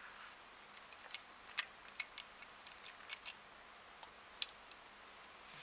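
Faint, irregular light clicks and taps as a steel watch case and its metal link bracelet are handled and turned over.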